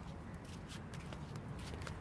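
Footsteps on paving stones, a few sharp steps a second, over a low steady rumble.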